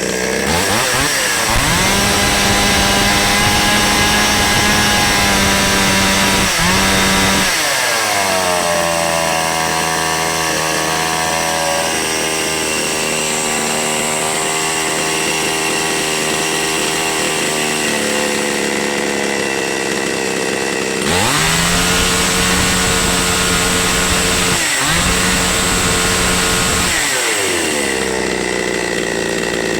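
Two-stroke chainsaw engine running, test-run while its carburetor and fuel supply are checked. It starts at a steady speed, picks up to a higher steady speed about eight seconds in, and drops back about two-thirds of the way through, with two brief dips in speed near the end.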